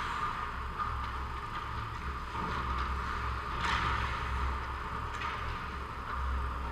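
Ice hockey rink during play: a steady low hum under the scraping of skates on the ice and a few soft stick or puck knocks. The sharpest scrape or knock comes about three and a half seconds in.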